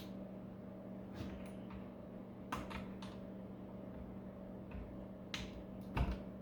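Wire cutters snipping thin wires inside a battery charger: a few sharp, separate clicks a second or more apart, the loudest near the end, over a faint steady hum.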